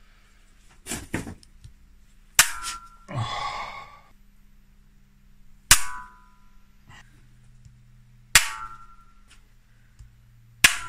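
Sharp metallic cracks, four loud ones a few seconds apart, each with a brief ring, as a cylinder head bolt is turned with a breaker bar: the threads in the aluminium BMW M52 engine block popping and pulling out.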